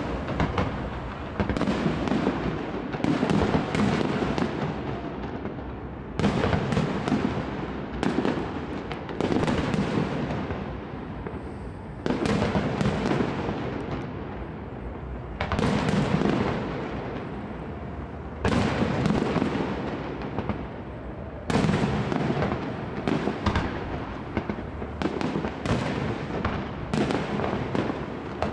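Aerial firework shells bursting overhead in a continuous barrage. Sharp bangs come one every second or two, each trailing off in a rumbling echo.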